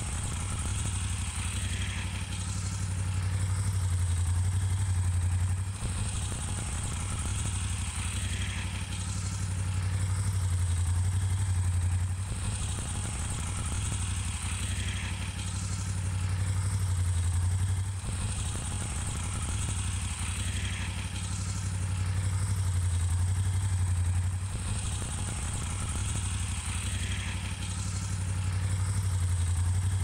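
Moto Guzzi V7's air-cooled transverse V-twin idling steadily, its level rising and easing slightly about every six seconds.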